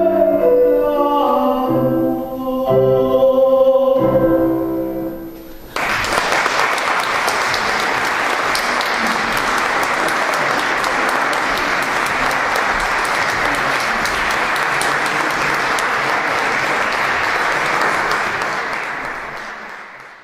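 A male classical singer and a grand piano finish an art song, with a held sung note and the final chords dying away. About six seconds in, audience applause breaks out and goes on steadily, fading out near the end.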